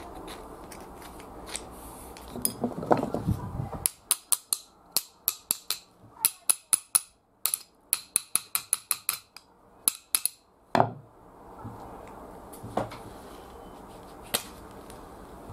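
Quick run of sharp, light taps, about three or four a second, as a black-handled tool strikes the rusty vintage screwdriver standing upright on a wooden bench. The taps end in a heavier knock, and a scraping rub comes before them.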